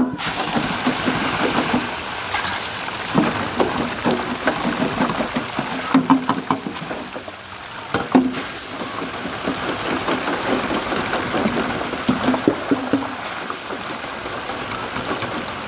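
Raw cut potato fries in wire baskets sizzling and crackling in a deep fryer's hot oil. The sizzling starts suddenly as the fries go into the oil. A few sharp metal clanks come from the baskets and handles knocking against the steel fryer.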